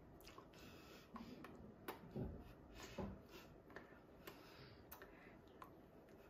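Faint, irregular clicks, taps and rustles of hands and sleeves moving and touching as a person signs, about a dozen in all, with a couple of soft thumps about two and three seconds in.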